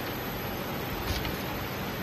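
Cereal bar production line machinery running with a steady noise, and a short hiss about a second in.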